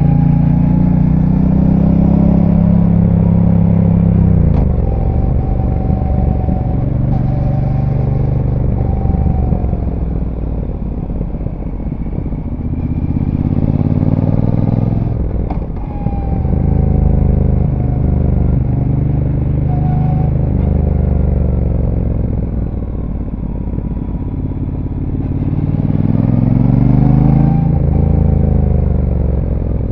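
Brixton Cromwell 1200's parallel-twin engine with its stock exhaust, heard on board while riding. The engine pitch falls as the throttle is rolled off about four seconds in, dips again about halfway through, and climbs under acceleration near the end before easing off.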